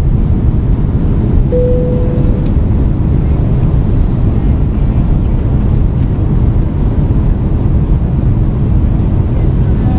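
Steady low rumble of engines and rushing air inside a jet airliner's cabin as it climbs after takeoff. A brief steady tone sounds about a second and a half in.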